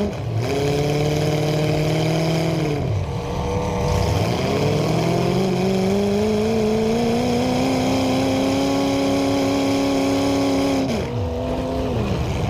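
Demolition derby car engine revving hard. It holds high revs, drops off sharply about three seconds in, then climbs slowly back up and holds. It drops again near the end and picks up once more.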